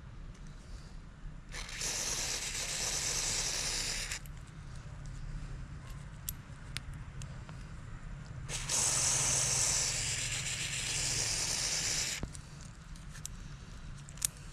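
Two long hissing sprays, the first about two and a half seconds long and the second about three and a half, over a steady low hum, with a few light clicks between them.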